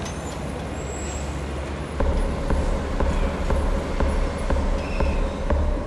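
Road traffic noise, a steady wash of passing cars. About two seconds in, a low pulsing beat with a held tone and regular ticks about twice a second comes in: the start of an electronic score laid over the street sound.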